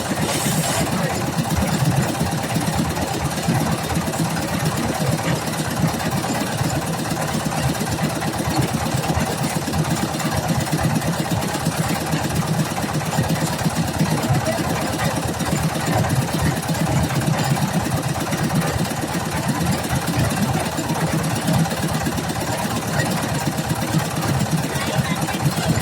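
Engine of road-construction machinery running steadily at an even speed, with faint voices in the background.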